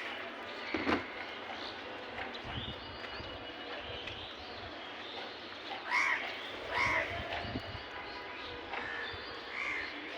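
Crows cawing: a few short harsh calls around the middle and one near the end, with a single sharp knock about a second in.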